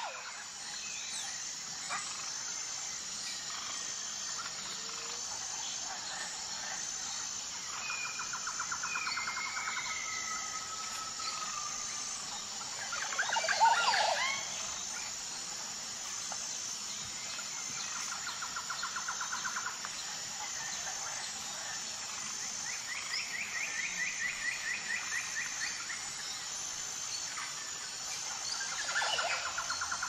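Jungle ambience of several birds calling, with repeated fast trills and whistled glides, over a steady high insect drone with an even pulsing chirp. One louder call stands out about halfway through.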